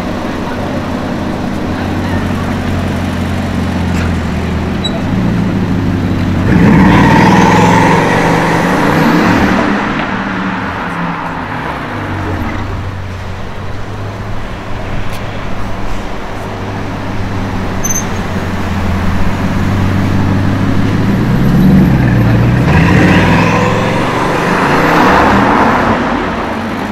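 Bugatti Chiron Super Sport's quad-turbocharged 8.0-litre W16 engine running at low speed in traffic. Its engine note surges up twice under acceleration, about six seconds in and again from about twenty-one seconds, each time rising and then falling away.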